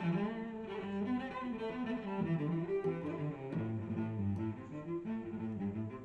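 Background music led by bowed strings, with low cello or bass notes moving under higher parts.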